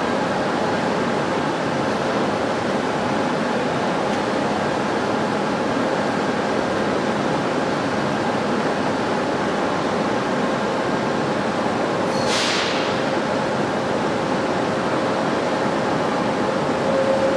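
AS-02 metro train standing at a station platform, its ventilation and auxiliary equipment giving a steady hum with a few faint steady tones. A short hiss of air comes about twelve seconds in, and a steady tone grows louder right at the end.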